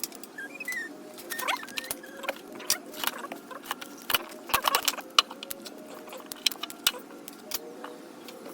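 Metal hand tools clinking and clattering as they are handled and set down: an irregular string of sharp clicks and rattles, some ringing briefly.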